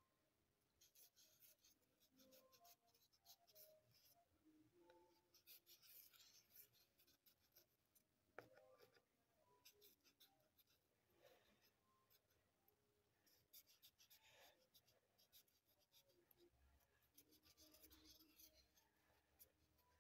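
Faint scratchy rubbing of a Posca paint marker's fibre tip on sketchbook paper as it colours in, coming in bursts of strokes with short pauses.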